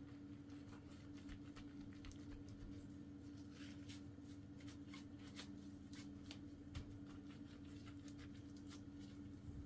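Quiet room tone with a steady low electrical hum, overlaid by scattered faint clicks and light handling sounds.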